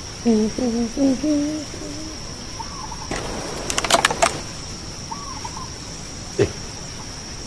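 A man humming a wavering tune for the first second and a half or so, over a steady high-pitched whine. A quick cluster of sharp clicks follows about halfway through, then a single dull knock near the end.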